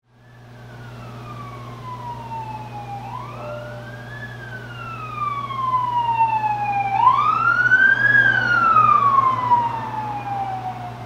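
A siren wailing, its pitch climbing quickly and then sliding slowly down, in cycles about four seconds long, over a steady low hum.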